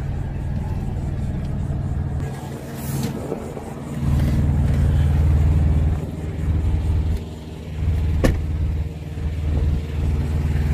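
Semi-truck's diesel engine idling steadily, with a sharp click a little after eight seconds.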